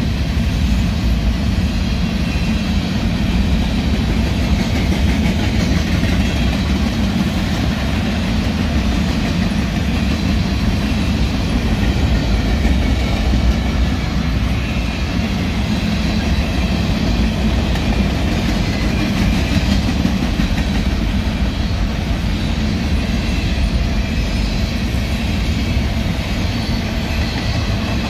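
Long freight train of covered hopper cars rolling past: the steady rumble and rattle of steel wheels running over the rails.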